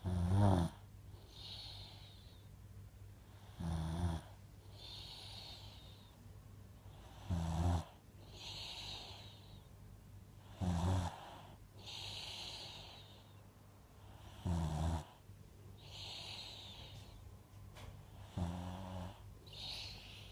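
Sleeper snoring: six loud, low snores about every three and a half to four seconds, with a softer hiss of breath between each.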